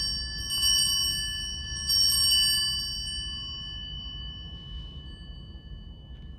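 Altar bells rung at the elevation of the consecrated host during Mass. A peal already ringing is struck afresh about half a second in and again about two seconds in, then its clear, high ringing fades slowly away.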